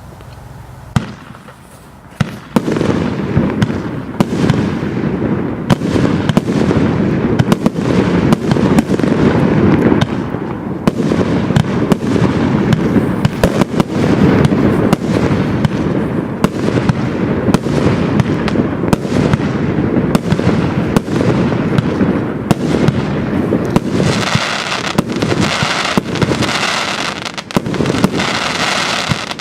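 Compound firework cake firing. A single bang comes about a second in, and from about two and a half seconds a rapid, near-continuous barrage of shots and bursts follows. Near the end a denser, hissing high-pitched texture joins the shots.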